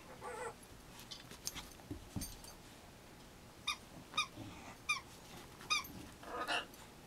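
A small dog giving short, high-pitched squeaky whines while it spins after its tail: one short whine at the start, four quick squeaks about half a second apart in the middle, and a longer whine near the end. A few light clicks and a soft thump come in between.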